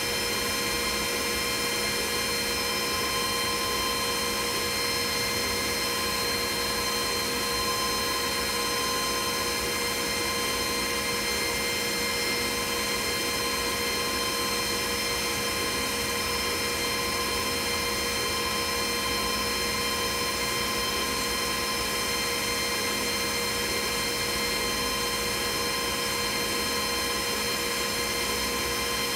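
Glowforge CO2 laser cutter running while it scores a wooden piece: a steady mechanical whir with several steady tones that holds unchanged.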